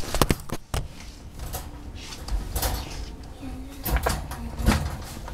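Handling noise from a handheld camera: a string of irregular knocks and clicks with rubbing in between as it is moved about.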